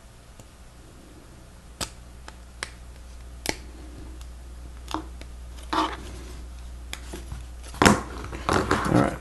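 Plastic Lego Technic pieces clicking and tapping as they are handled and fitted together: single sharp clicks about a second apart, growing busier with a cluster of rattling clicks near the end. A steady low hum lies underneath.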